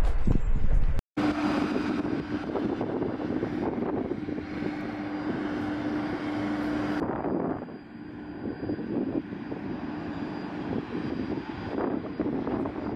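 An aircraft engine running with a steady drone and hum. The sound breaks off for an instant about a second in, and about seven seconds in it drops in level and loses its hiss.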